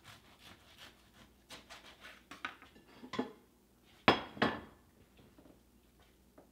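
Kitchen knife cutting through a sandwich on a wooden cutting board, a run of light taps and scrapes, then a plate set down with two loud clacks about four seconds in.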